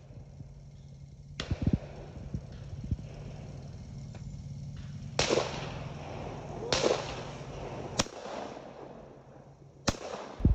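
Over-and-under shotgun's action snapping shut, followed by a series of sharp bangs as shots are fired at clay targets, the loudest near the end.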